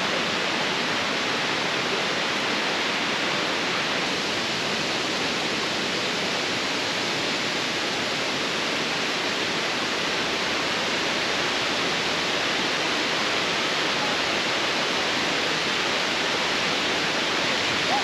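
Steady rushing hiss of a tall cascading waterfall, Bridal Veil Falls, about 60 metres high.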